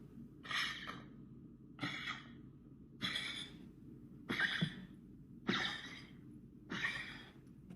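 Toy-breed dog's 'goose honk' cough: six loud, honking coughs about a second apart. The cough comes mainly from airway disease, in a dog that also has severe heart failure.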